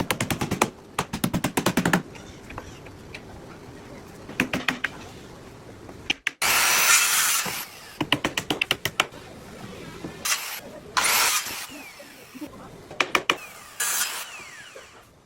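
Boat-building tool work on wood: runs of rapid knocking strikes, about ten a second, broken by a short noisy burst of a power tool about six seconds in and shorter ones later.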